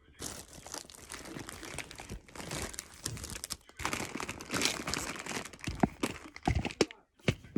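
Plastic bags and snack packaging crinkling and rustling as they are handled, with a few sharp clicks and taps in the second half.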